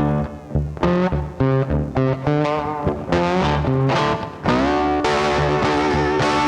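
Background music: rock with a distorted electric guitar playing quick runs of notes over bass and a steady beat.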